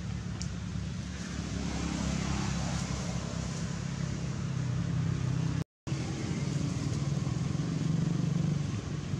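A steady low engine-like hum, with a brief total dropout just past halfway.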